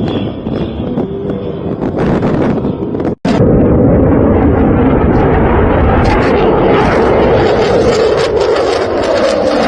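Military jet aircraft noise, a loud steady rush. It cuts out suddenly for an instant about three seconds in, then returns louder.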